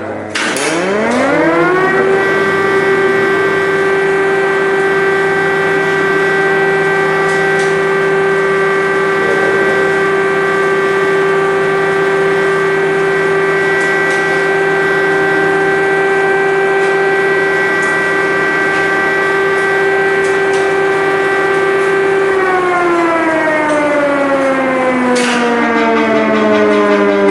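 Air-raid siren winding up to a steady wail: its tone rises for about two seconds, holds one constant pitch for about twenty seconds, then begins to wind down in a slow falling glide near the end.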